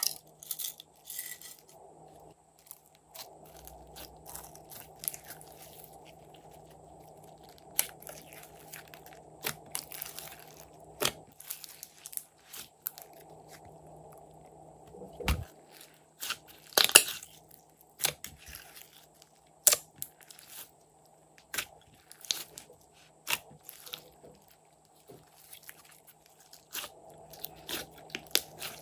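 Hands squishing, stretching and kneading a large mass of glossy slime in a glass dish, making irregular sticky clicks and wet pops, the loudest about 17 seconds in. At the start, sequins are shaken into the slime.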